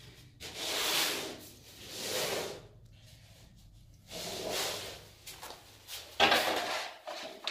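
Four rubbing or scraping strokes, each about a second long, with short pauses between them.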